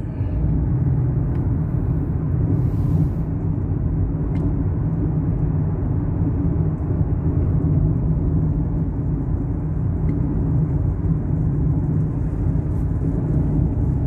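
Steady rumble of engine and tyre noise heard inside a Mazda CX-5's cabin while cruising at about 80 km/h.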